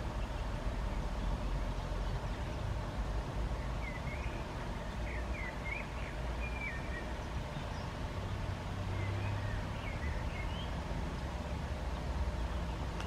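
A steady low rumble of outdoor background noise, with a small bird chirping a few short calls about four seconds in and again around nine to ten seconds.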